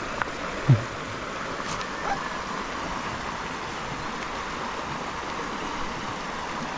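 A shallow rocky stream running over stones, a steady rush of water. About a second in, a brief low sound falling in pitch, like a grunt, stands out over it.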